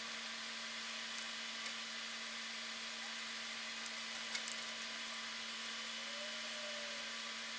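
Steady recording hiss with a constant low electrical hum, the noise floor of a soundtrack with no real sound on it; a single faint tick about four seconds in.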